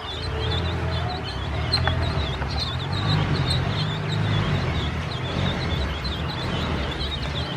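A group of ducklings peeping continuously: many short, high peeps overlapping one another, over a steady low rumble.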